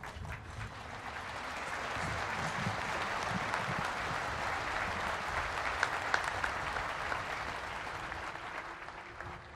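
Crowd applauding. The applause swells over the first couple of seconds, holds steady with a few sharper individual claps midway, and eases slightly toward the end.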